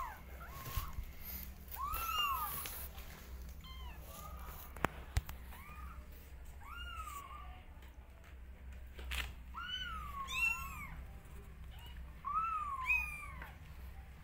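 Newborn kittens mewing: short, high-pitched cries again and again, often two or three in quick succession. Two sharp knocks about a third of the way through.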